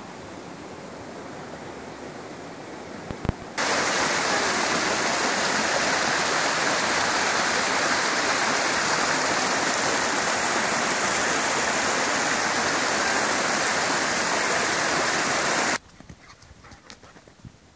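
Shallow creek water rushing over small rock cascades. For the first few seconds the flow is quieter. About four seconds in, a much louder, steady rush starts abruptly, and it cuts off just as abruptly near the end.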